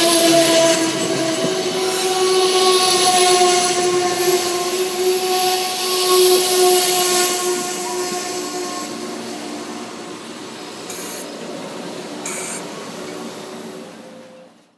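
Amtrak passenger train's stainless-steel coaches rolling past at close range, with a steady squealing tone from the wheels over the rolling noise. It fades as the train draws away. There are two short hisses near the end.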